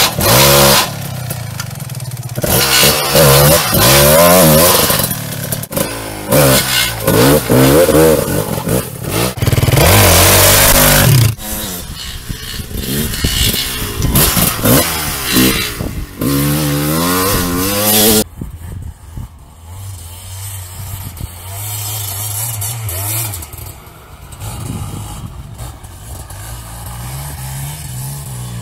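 Christini 450AWD all-wheel-drive dirt bike engine revving as the bike rides off-road, its pitch rising and falling over and over. About two-thirds of the way through it drops to a quieter, steadier engine note.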